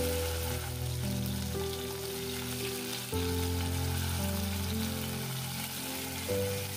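Food sizzling as it fries, with background music of held chords that change every two to three seconds.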